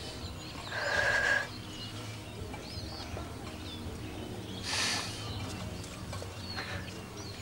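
Quiet outdoor ambience with faint, scattered bird chirps over a low steady hum, broken by two short louder sounds, one about a second in and a breathy rush near five seconds.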